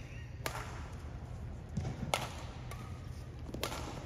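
Badminton rackets striking the shuttlecock during a doubles rally: three sharp strikes about a second and a half apart, with a couple of soft footfall thuds between them, over a steady low hum.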